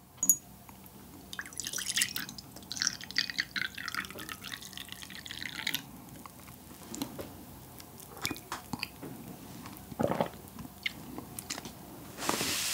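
Drip coffee poured from a glass server into a ceramic mug: a splashing pour of about four seconds that thins out. A few light clicks and a knock follow, and near the end there is a soft bite into a slice of pressed cotton candy.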